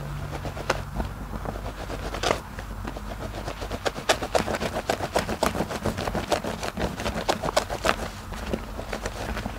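A wet, soapy sponge squeezed and kneaded by hand in thick lather: wet squelching with quick crackling pops of foam, coming thick and fast through the middle.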